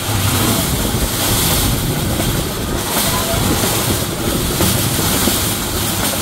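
Pedal-powered rail bike's steel wheels rolling along the track: a steady rumble and rattle, with wind buffeting the microphone.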